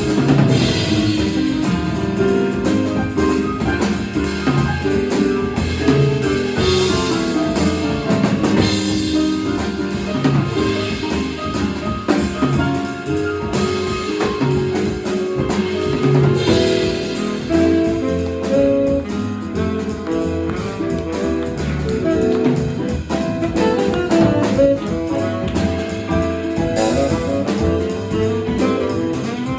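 Live jazz quartet of drum kit, piano, double bass and saxophone playing a tune, with the drum kit prominent and cymbal crashes every few seconds over a busy line of notes.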